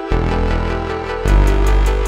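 Electronic background music with a steady beat and a deep bass line that changes note about a second in.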